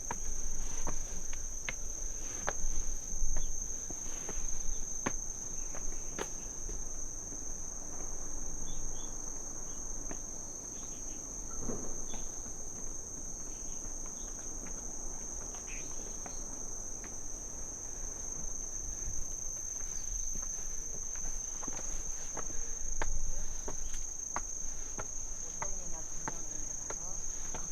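Crickets chirping in a steady, unbroken high-pitched trill, with irregular footsteps and light knocks on the walking path beneath it.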